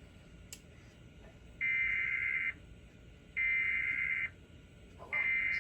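Emergency Alert System SAME header sent by an EAS decoder: bursts of high digital data tones, each about a second long with a second's gap between them. Two bursts are complete and a third starts near the end, marking the start of a relayed alert.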